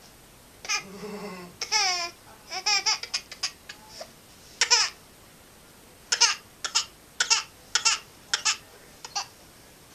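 Baby fussing and crying for attention: a string of short, high-pitched cries and sobs, wanting to be picked up.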